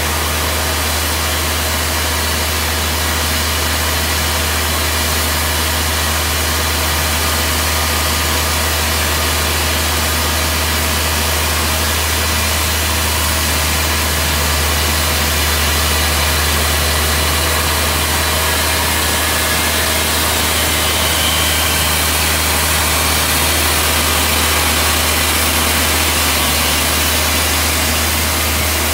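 Ingersoll-Rand T3W drill rig running steadily on its test run: a deep, constant engine drone with an even hiss over it and no change in pace.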